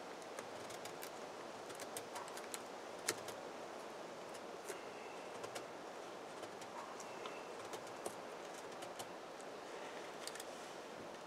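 Faint, scattered small clicks and snaps over a steady hiss, one sharper click about three seconds in: dry kindling being handled while a campfire is prepared.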